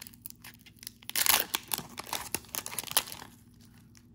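Foil wrapper of a trading-card pack crinkling and tearing as it is opened, in short irregular crackles, loudest a little over a second in.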